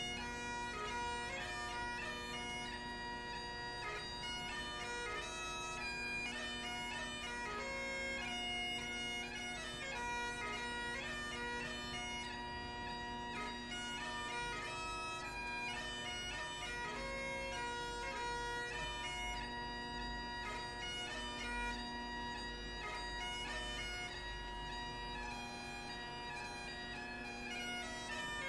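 Great Highland bagpipe playing a tune: the drones hold one steady chord while the chanter plays the melody above them, without a break.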